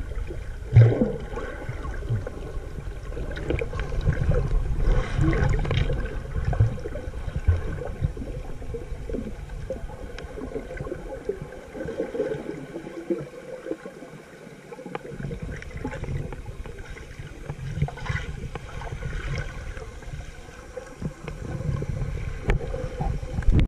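Underwater sound picked up by a submerged camera: water moving around the camera over a low, uneven rumble, with scattered small knocks. The low rumble drops away for a couple of seconds about halfway through.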